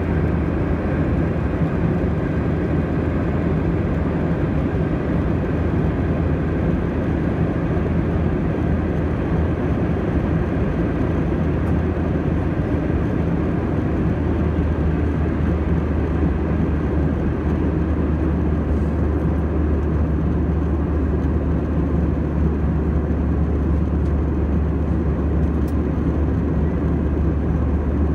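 Steady cabin noise of an Airbus A320-232 in flight, heard inside the cabin: the rush of air over the fuselage over the low drone of its IAE V2500 engines. The low drone grows a little stronger about halfway through.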